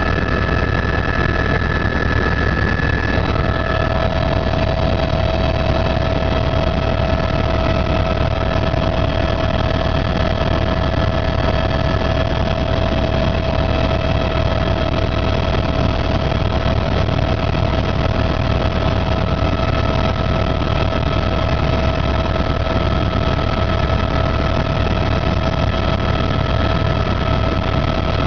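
Helicopter running, a steady drone of rotor and engine noise with several constant whining tones over it.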